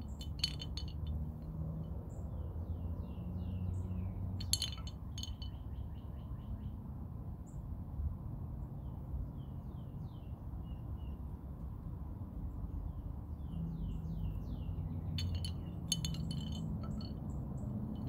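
Small hanging wind chime clinking and ringing in three short bursts: once at the start, once about four seconds in, and again near the end. Between the bursts a bird sings series of short descending chirps.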